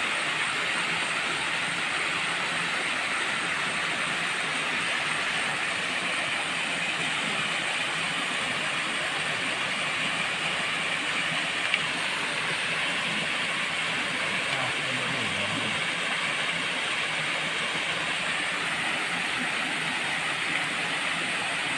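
Steady rushing of water from a small cascade, an even noise with no change, with one faint click about halfway through.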